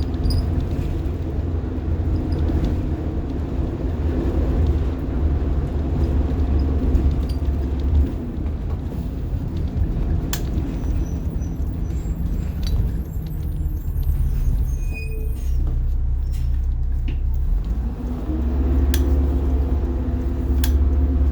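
The 1990 Blue Bird All American school bus's rear-mounted diesel engine, heard from inside the bus, running under load as it drives. It eases off about eight seconds in, with a few clicks and rattles while it is quieter, then pulls hard again near the end.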